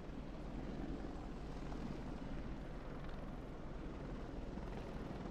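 AH-64D Apache attack helicopter hovering low, its rotors and engines making a steady drone.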